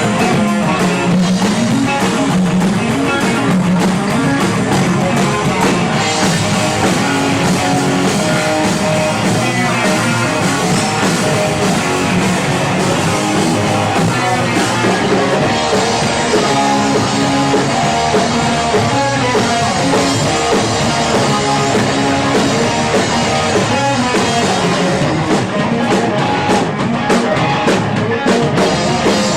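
Live rock band playing loud and steady, with electric guitars and a drum kit, recorded from the audience.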